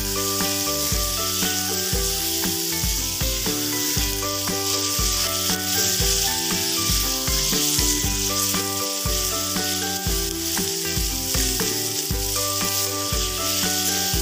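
Chicken and green beans in sauce sizzling steadily in a hot pan while being stirred with a metal spatula. Background music with a steady beat plays over the frying.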